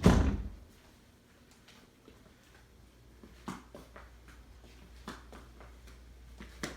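A brief loud thump, then quiet room tone with a low steady hum and a few faint scattered clicks.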